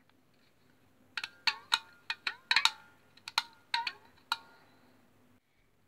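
Violin strings plucked: about a dozen short, ringing notes in an uneven rhythm, from about a second in until a little past four seconds.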